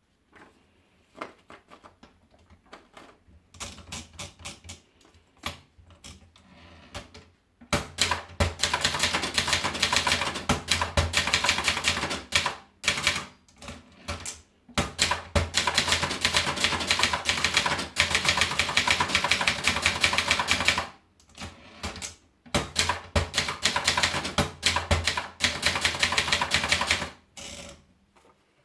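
Vendex 500 typewriter being typed on: a few scattered keystrokes at first, then fast, continuous typing from about eight seconds in, broken by a few short pauses.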